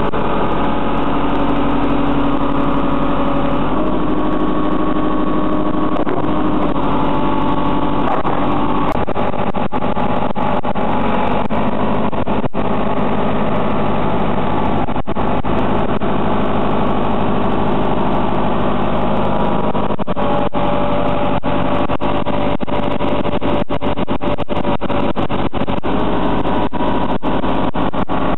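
JCB 3CX Super backhoe loader's diesel engine running steadily, its pitch shifting to a new level about 4 seconds in, again around 8 seconds and near 20 seconds.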